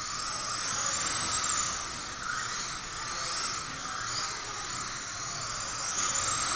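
Kyosho Mini-Z MR-02 RC car with a 70-turn PN brushed motor running laps: a steady high whine and hiss that swells and fades a little as the car speeds up and slows.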